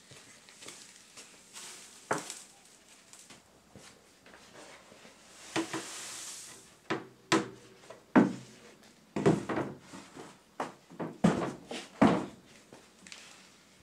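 Charcoal poured from a scoop into a brick forge trough: a soft rushing hiss for about a second, then a string of sharp knocks and clatter as the pieces and the scoop are handled.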